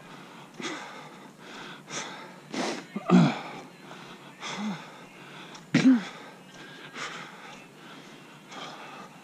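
A runner's heavy breathing while running hard: quick, rhythmic in-and-out breaths, with two louder voiced exhales about three and six seconds in.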